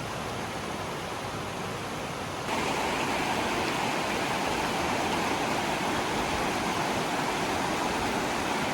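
River rushing: a steady noise of flowing water that gets abruptly louder about two and a half seconds in.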